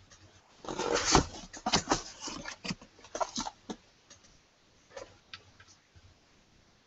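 Hands handling computer parts and cables: a run of close clicks and rustles for about three seconds, then a few scattered faint clicks.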